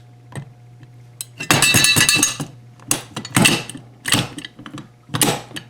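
Metal rattling and clicking of a Kidde 270-SPO fire alarm pull station being opened to reset it: a burst of rattling about one and a half seconds in, then several sharp clicks and knocks, over a steady low hum.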